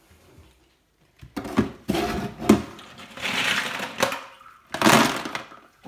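Snail shells clattering and a plastic basin knocking against a stainless-steel sink as they are handled: a run of sharp knocks and rattles starting about a second in.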